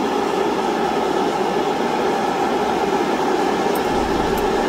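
Steady, even drone of the small motor-driven airbrush painting setup running, with a rush of air and no change in pitch.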